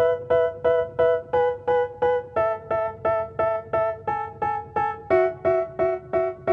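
Background music: a keyboard playing short repeated chords, about three strikes a second, changing chord every four strikes or so.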